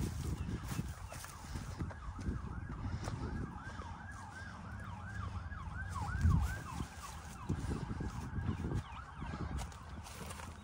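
Faint emergency-vehicle siren on a fast yelp, its pitch sweeping up and down about three to four times a second. Low thumps and rustling run underneath, with the biggest thump about six seconds in.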